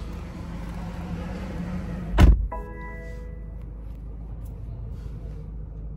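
A single heavy thump about two seconds in, followed at once by a short chime of several held tones that fades out within about a second, over a steady low hum.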